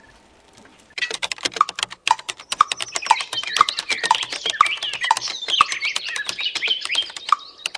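Rapid computer keyboard typing, many quick key clicks, starting about a second in. Birds chirp through it, and a light tick sounds about twice a second.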